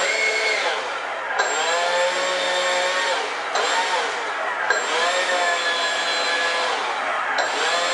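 A 70 mm ten-bladed ChangeSun electric ducted fan, driven by a 2600 kV motor, running up at high throttle with a loud whine. The pitch drops and climbs back again several times as the throttle is worked.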